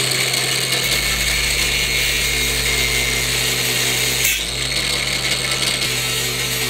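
Electric angle grinder with a cutoff wheel running steadily, cutting through a small bracket, with a brief dip about four seconds in.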